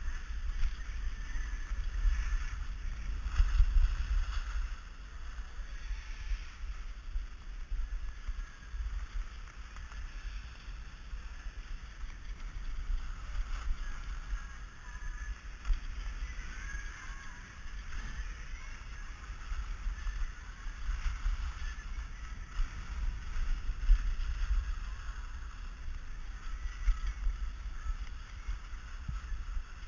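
Low wind rumble buffeting the camera's microphone, with the hiss and scrape of a skier sliding and carving down a packed snow slope, swelling and easing through the turns.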